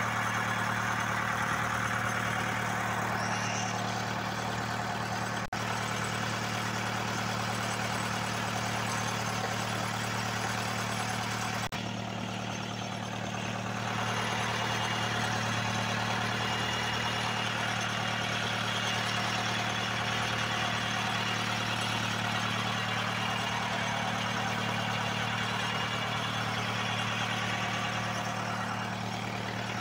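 A fishing boat's engine running with a steady low hum, under the hiss of fish frying in hot oil in a pan on a portable gas stove.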